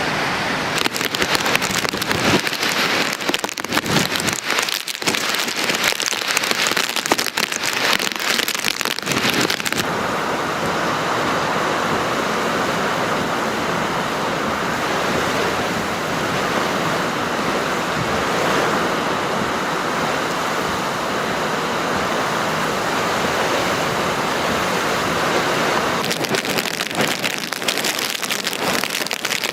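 Hurricane wind and driving rain, with gusts hitting the microphone in rapid crackles at first and again near the end. In the middle stretch there is a steadier, even rush of wind and rain.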